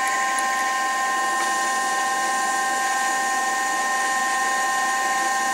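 Denford Orac CNC lathe with its spindle running at about 770 rpm while a 29/64-inch twist drill bores into an EN16T steel cylinder blank. It makes a steady whine of several fixed pitches over a hiss.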